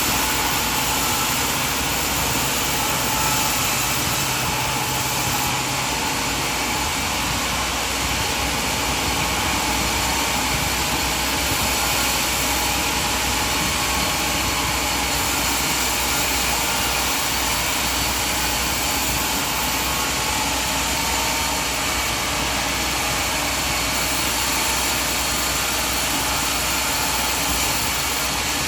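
Sawmill machinery running with a steady, even mechanical noise and hum that holds level throughout, with no distinct cuts or impacts.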